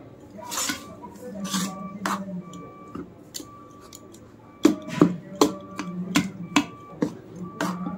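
A spoon stirring thick batter in a metal bowl, scraping and knocking against the bowl's sides. The knocks grow louder and quicker about halfway through, two or three a second.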